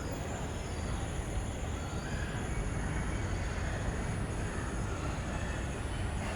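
Steady low rumble of background noise with faint, steady high-pitched tones above it.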